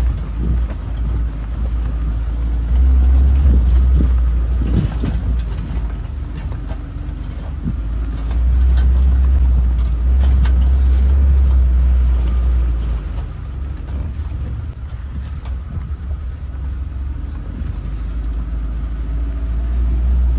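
Wind buffeting the microphone: a low rumble that swells and eases, loudest a few seconds in and again through the middle.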